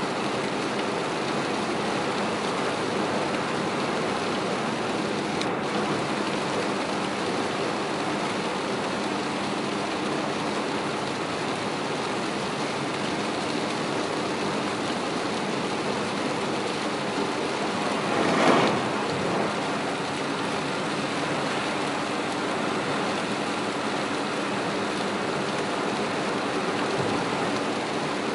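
Heavy rain falling on a moving car's roof and windows, heard inside the cabin, with a steady hiss of tyres on the flooded road. About two-thirds of the way through, a brief louder whoosh rises and fades.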